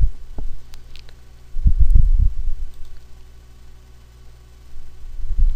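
Steady low hum with a couple of faint clicks, and a cluster of dull low thumps about two seconds in.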